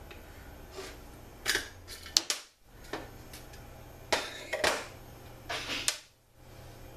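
Small metal transmission parts clicking and clinking as they are handled and set down on the workbench, with a few sharp clicks at irregular moments.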